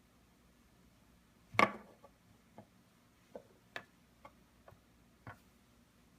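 Plastic LEGO pieces clicking against each other and the table as they are handled: one louder knock about a second and a half in, then a string of lighter, irregular clicks.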